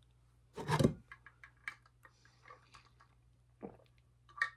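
Pill bottle being handled as a single pill is taken: one louder handling noise about half a second in, then a string of small light clicks and ticks.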